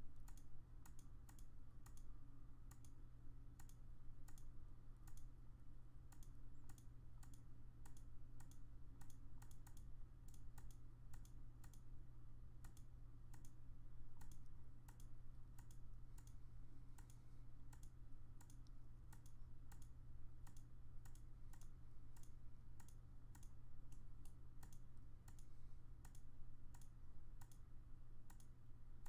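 Computer mouse button clicking over and over, about two clicks a second at an uneven pace, over a low steady hum.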